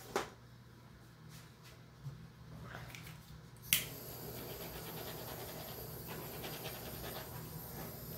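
Handheld butane torch clicking on a little under four seconds in, after a fainter click near the start. Its flame then hisses steadily, with a thin high whistle, as it is passed over wet acrylic pour paint.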